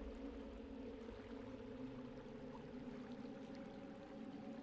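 Faint, steady background sound of running water, with a low steady hum beneath it.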